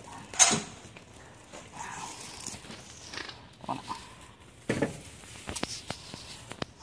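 Truck cab door being opened, with a loud short noise about half a second in. A plastic bag rustles and there are scattered knocks of handling inside the cab.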